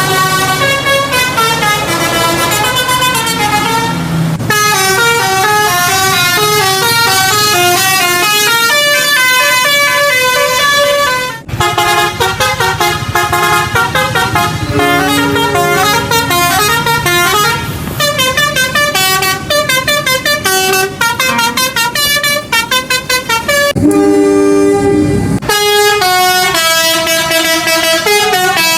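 Telolet bus horns playing fast multi-note melodies, the notes hopping up and down several times a second, in a string of separate clips with sudden changes between them. About 24 seconds in, a lower, steady horn chord sounds for about a second and a half.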